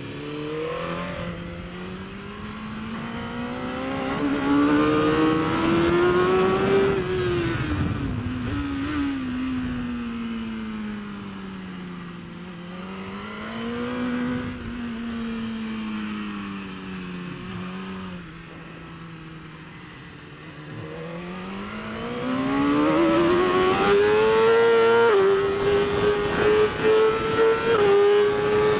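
BMW S1000RR's 999 cc inline-four engine revving hard through the gears and dropping back on braking for the corners, several times over. A long climb near the end levels off high before falling away.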